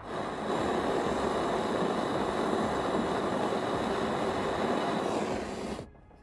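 Jeweller's gas torch flame hissing steadily while it heats a twisted gold ring on a soldering pad; it starts abruptly and cuts off suddenly near the end.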